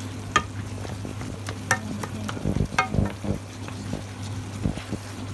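A spoon stirring food in a cooking pot, clinking against the pot with a short ring about three times, over a steady low hum.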